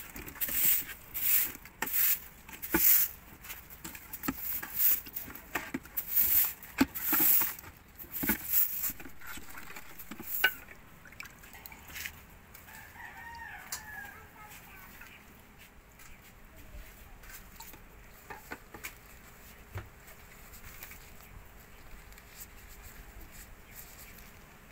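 A plastic spatula stirring coconut milk in a plastic tub, each stroke scraping the tub, about one and a half strokes a second for the first eight seconds or so. Then a chicken calls briefly, about halfway through.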